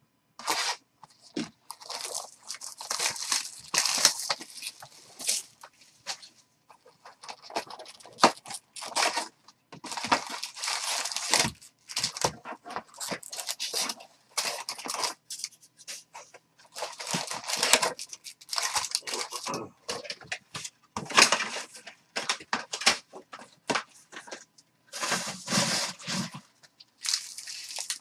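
Baseball card hobby box being torn open by hand and its foil card packs handled: irregular crinkling and tearing of cardboard and foil wrappers with short pauses.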